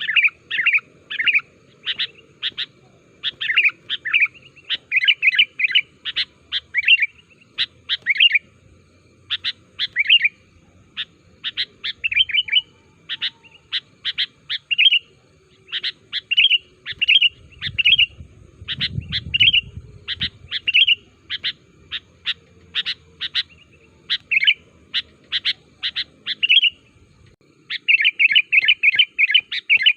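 Sooty-headed bulbul (kutilang) singing: a steady stream of short, sharp chirps and quick warbled phrases, turning into a dense run of rapid notes near the end.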